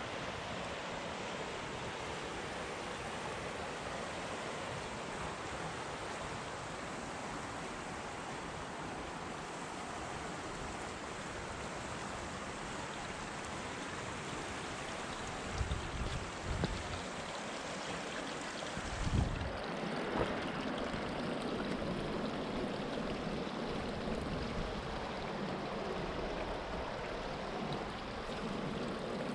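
A river in flood rushing steadily. A few short low thumps come a little past halfway.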